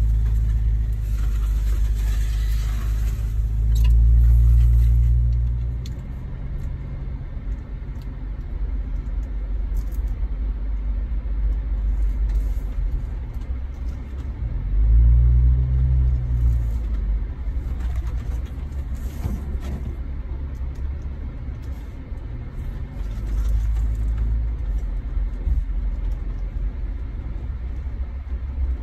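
Jeep Wrangler Rubicon's engine running at low speed on a dirt trail, with a steady low rumble from the drivetrain and tyres. The engine swells louder twice, about four seconds in and again around fifteen seconds in.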